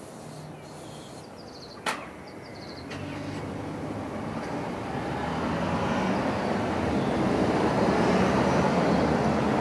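A sharp click about two seconds in. Then a motor vehicle's engine grows steadily louder over several seconds and keeps running.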